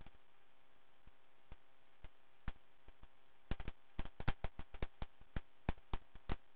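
A series of sharp clicks over a faint steady hum: a few scattered clicks, then a quick run of about four a second starting about three and a half seconds in.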